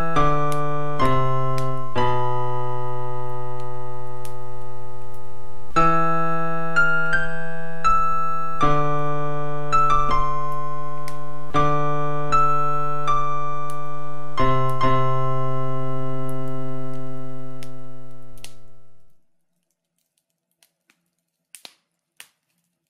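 Yamaha PSR-170 portable keyboard playing its first demo song: sustained chords and a melody, changing every second or two. The music fades out about three-quarters of the way through, leaving silence with a couple of faint clicks near the end.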